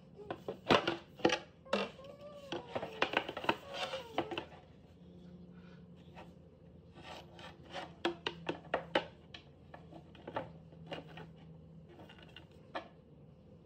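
Laminated wooden panels of a children's chair knocking and scraping against each other and the tile floor as they are handled and fitted together: a run of sharp knocks and rubs in the first four seconds or so, another cluster around the middle, then a few scattered taps.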